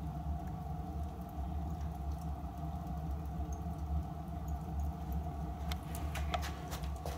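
Steady low hum of boiler-room machinery beside a solid-fuel boiler, with a fainter steady whine over it. A handful of sharp clicks come near the end.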